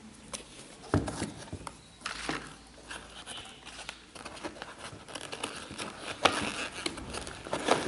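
Hands handling an Air Jordan 7 sneaker: leather and lining rustling and scuffing as the tongue is folded and released, with a few sharp knocks.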